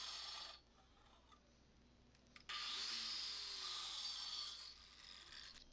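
A thin cutoff wheel on a 6-inch Metabo angle grinder cutting through stainless steel pipe: a fairly quiet, high hissing rasp. It breaks off about half a second in and comes back about two and a half seconds in for about two seconds.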